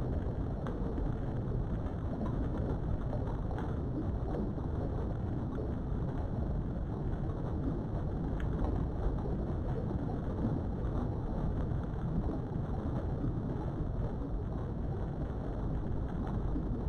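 Steady low rumbling background noise with a few faint clicks.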